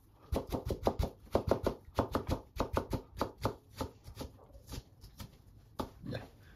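Kitchen knife slicing a stack of thin cucumber sheets into fine julienne strips on a plastic cutting board. The blade knocks quickly and evenly on the board, about five times a second, then the strokes thin out to a few spaced cuts after about four seconds.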